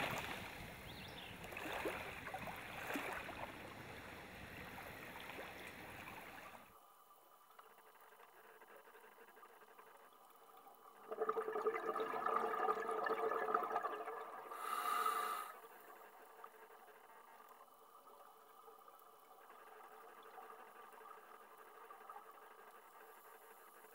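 Trickling, running water for the first several seconds, cutting off suddenly. About halfway through, a louder swelling sound rises for about four seconds and fades, leaving a faint hiss.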